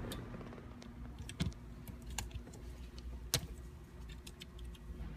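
Scattered hard clicks and light knocks from the plastic gear selector assembly and its connectors being handled in the centre console, the loudest about a second and a half in and again about three seconds in, over a steady low hum.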